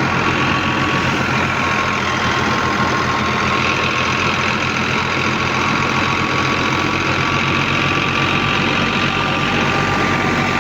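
Engine of wheat-harvesting farm machinery running steadily at an even speed, with a thin steady whine above a dense, even mechanical rush.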